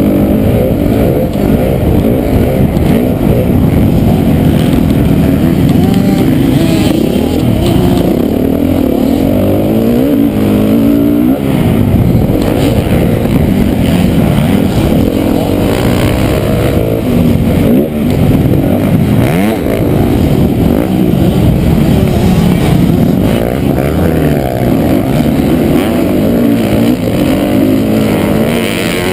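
Motocross bike engine in a 450-class race, heard close up from the bike itself, revving up and falling back over and over as the rider accelerates, shifts and brakes around the dirt track.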